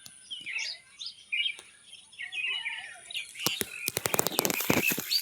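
Many small birds chirping and twittering at dusk. From about three and a half seconds in, a dense run of crackling clicks and rustles, louder than the birds.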